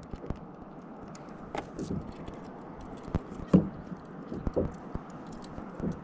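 Scattered light clicks and a few dull knocks from a spinning reel and rod being handled in a plastic sit-on-top kayak, over a steady wash of sea and wind. The loudest knock comes about three and a half seconds in.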